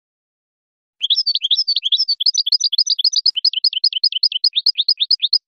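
European goldfinch singing: a fast, even run of short, high sweeping notes, starting about a second in and stopping abruptly near the end.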